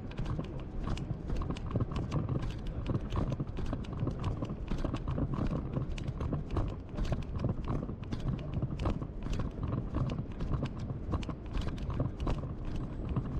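Footsteps on pavement, a regular run of sharp clicks about two to three a second, over a steady low rumble.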